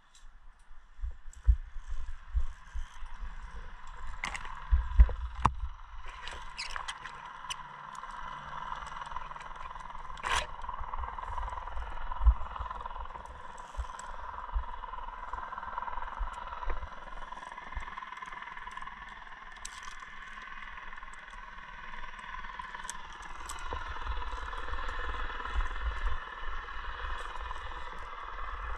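Climbing gear clattering and scraping on a via ferrata route, with scattered sharp clicks over a steady rushing background.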